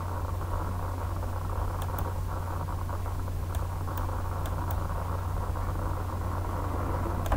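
Steady low electrical hum and hiss of a recording's background noise, with a few faint, sharp clicks scattered through it.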